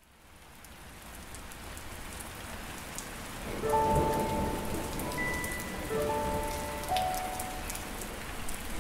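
Steady rain fading in, with a low rumble of thunder about three and a half seconds in. Soft, held musical notes come in with the rumble and carry on over the rain.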